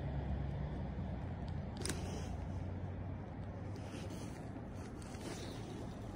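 Wind buffeting the microphone as a steady low rumble, easing a little after the first second, with one light tap about two seconds in.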